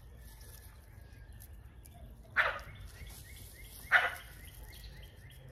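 A dog barks twice, about a second and a half apart, with faint birds chirping behind.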